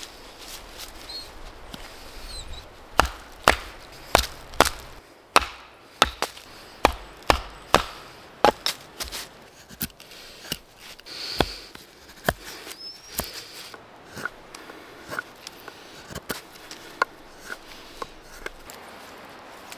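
Wood being chopped with a blade: a run of sharp chops about two a second from about three seconds in, then lighter, more scattered blows.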